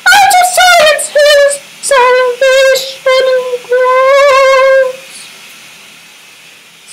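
A man singing wordless, tongues-style syllables in a high voice with heavy vibrato, in several held phrases. The singing stops about five seconds in.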